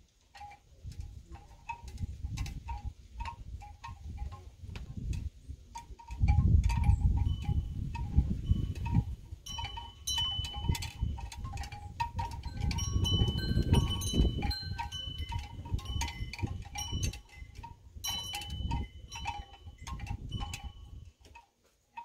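Wind chimes ringing at several pitches, in two spells near the middle and again toward the end. A gusty low rumble of wind on the microphone and scattered light ticks run underneath.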